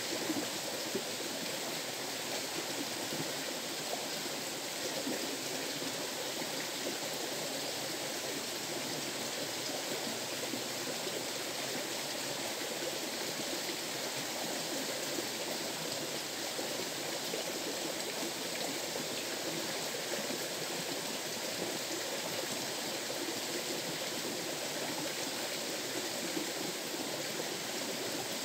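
River water rushing and flowing steadily, an even unbroken noise.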